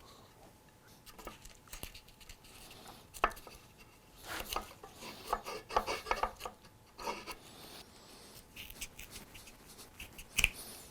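Hand work on oak chair parts: scattered sharp clicks and knocks of wood and tools, with a busy stretch of scraping and rubbing from about four to seven seconds in. The loudest are single sharp knocks about three seconds in and near the end.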